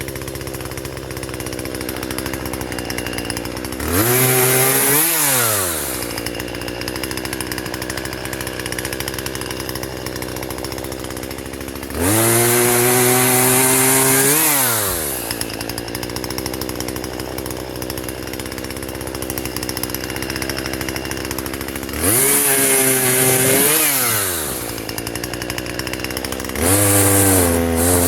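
Small two-stroke chainsaw, a Husqvarna 120, idling steadily and revved up four times as it cuts up fallen branches, its pitch dropping back to idle after each cut. The last rev-up carries on near the end.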